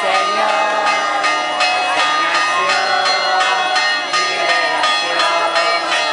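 Church bells ringing a rapid festive peal, the strokes coming about four a second over a wash of ringing tones, with crowd voices underneath.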